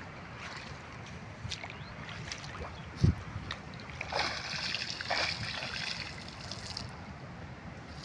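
Light water splashing and trickling, with one dull thump about three seconds in and a spell of brighter splashing from about four to seven seconds.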